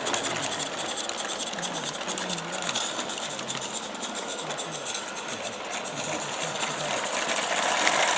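Small 16mm-scale live-steam garden railway locomotive working, a fast, even mechanical chatter over a hiss of steam, growing a little louder near the end.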